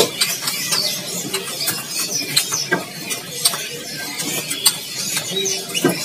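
Many caged songbirds chirping and cheeping in quick, scattered calls, with sharp clicks and taps from the bamboo cages mixed in.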